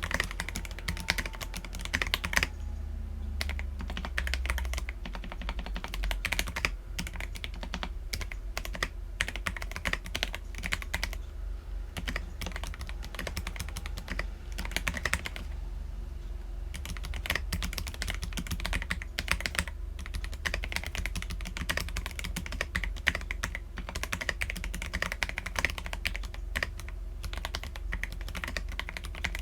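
Continuous typing on an Akko PC75B mechanical keyboard with lubed Akko Jelly Black linear switches and Cherry-profile PBT keycaps: a fast, irregular stream of keystroke clacks with a few brief pauses.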